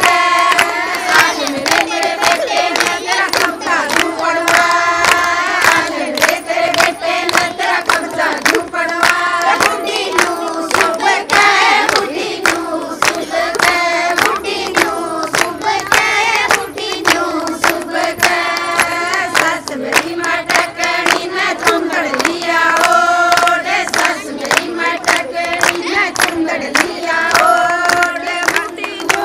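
A group of women singing a Haryanvi folk song together, with steady rhythmic hand clapping.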